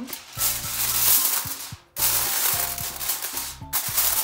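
Aluminium foil crinkling and crackling as it is pressed down over a glass baking dish, in two or three spells with short breaks, over background music.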